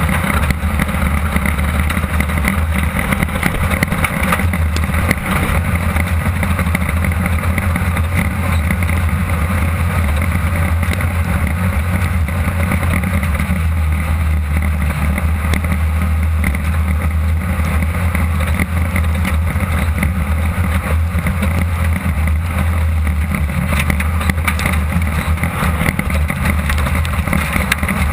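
1600-class off-road race car at speed, heard from inside the cockpit. Its air-cooled VW engine drones steadily under a constant wash of wind and road noise, with many small knocks and rattles.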